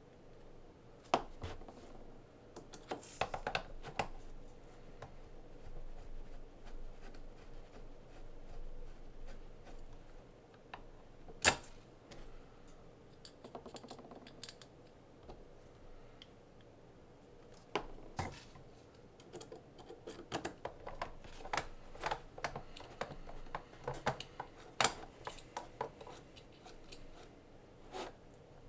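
Small, irregular clicks and taps of tiny screws and RC car parts being handled and fitted together during assembly. There are sharper knocks about a second in and near the twelve-second mark, and the clicking comes thicker in the last third.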